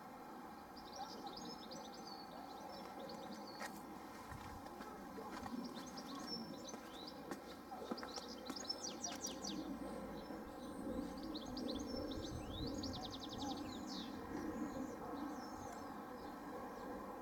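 Small songbirds chirping and giving quick trills, busiest in the second half, over a steady low background hum.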